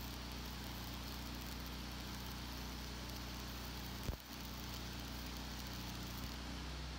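Stick welding arc from a 3/32-inch 6013 rod hissing and crackling over the steady running of a Lincoln Ranger 225 engine-driven welder. A single sharp knock about four seconds in.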